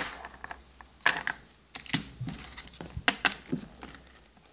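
Battle Spirits trading cards being handled: a string of irregular clicks, taps and short rustles as cards are flicked through and one is set down on the table.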